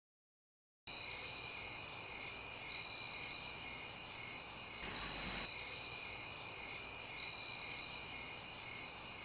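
Crickets chirring, a night-time insect chorus: a steady high trill with an evenly pulsing layer beneath it, starting about a second in.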